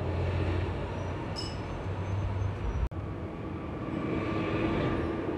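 Heavy street traffic: a city bus drives past with a low, steady engine drone, then a truck comes on with a steady whine. The sound cuts out for an instant about three seconds in.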